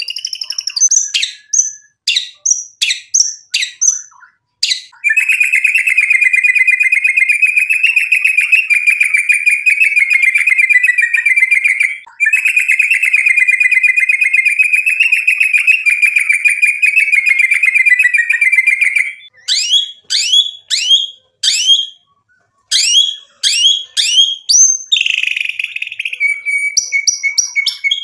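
Male white-rumped shama singing hard. It opens with a few seconds of sharp, quick sweeping whistles, then gives a long unbroken rapid trill of about seven seconds. After a brief break comes a second trill of similar length, and then separate fast sweeping whistled notes with a short harsh rasp near the end.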